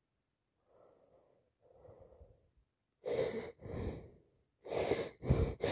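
A person with a heavy head cold building up to a sneeze: two faint breaths, then about three seconds in a run of loud, gasping inhalations that come quicker and quicker.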